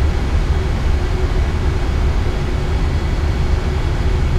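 Steady cockpit noise of an Airbus A320 in flight on approach: an even rush over a deep low rumble, with a faint steady hum.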